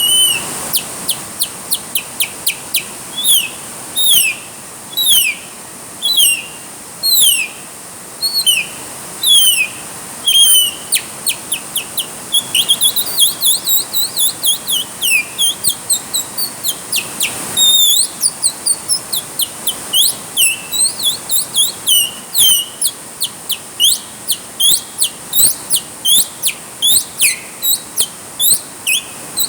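Birds chirping without a break: quick, sharp notes sliding downward in pitch, several a second. Behind them is a steady hiss of rain.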